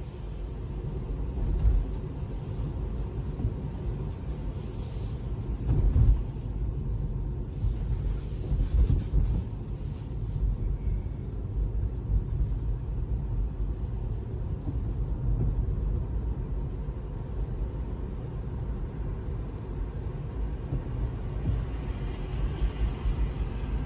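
Steady low rumble of tyre and road noise inside the cabin of a Tesla electric car driving on a wet road. Several dull thumps come at about two, six and nine seconds in, and there is brief hissing around five and eight seconds in.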